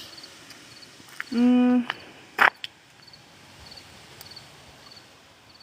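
Insects chirping faintly and steadily in short, evenly spaced pulses. About a second in there is a short steady-pitched tone, and just after the middle a single sharp brief noise.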